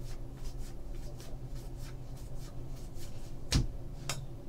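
A stack of 2014 Bowman football trading cards being paged through by hand, the card edges flicking and sliding over each other several times a second. A sharper knock comes about three and a half seconds in, with a smaller one just after.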